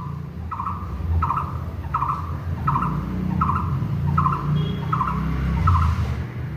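A bird calling one short note over and over, about nine times at a steady pace of roughly one and a half notes a second, over a steady low rumble.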